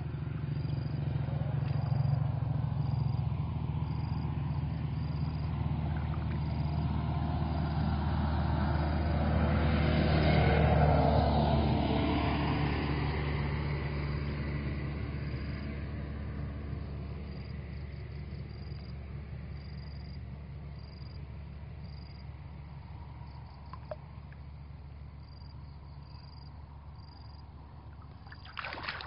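A motor vehicle's engine passing by: it grows to its loudest about ten seconds in, its pitch sweeps down as it goes past, and it slowly fades away. A few short splashes come near the end.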